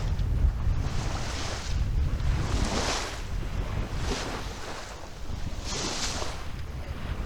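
Wind buffeting the microphone with a low rumble, while water rushes and splashes along the hull of a Maxi 95 sailboat under sail, in about four hissing surges.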